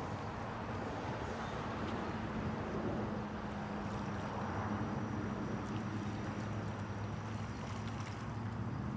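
A steady low hum, like a distant motor, over a faint outdoor background, with a faint high-pitched whine in the middle.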